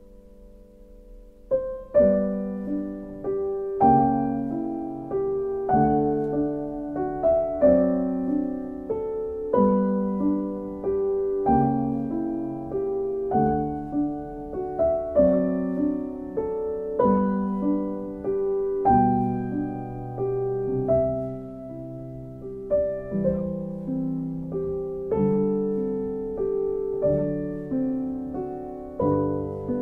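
Slow piano music: chords struck about every two seconds, each ringing and fading, coming in louder about a second and a half in after a soft held chord.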